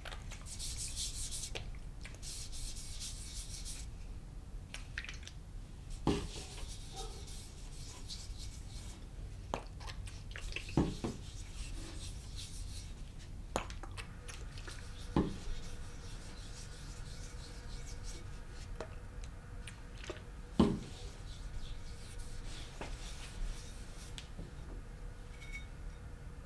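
Steel blade rubbing across a whetstone in two strokes within the first four seconds, then a few light knocks and taps spaced several seconds apart, over a steady low hum.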